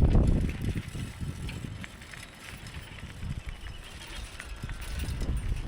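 Wind rumbling on the microphone during a bicycle ride, with scattered light clicks and rattles from the bike. The wind noise drops off about a second in and builds again near the end.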